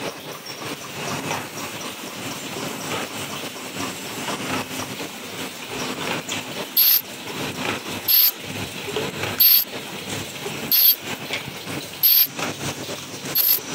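Paper sleeve forming and gluing machine running with a steady mechanical noise. About seven seconds in, short sharp hisses join it and repeat about every 1.3 seconds.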